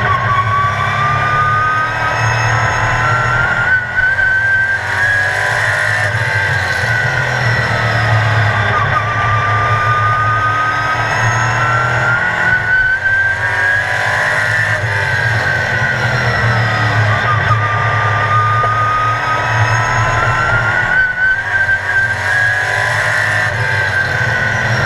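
Sportsman race car engine heard from inside the car, its pitch climbing on each straight and dropping as the driver lifts and brakes for the turns, in a repeating cycle of about eight seconds.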